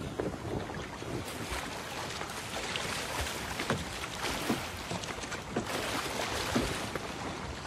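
River water splashing and lapping around men wading in it, with irregular small splashes over a steady wash of water and wind.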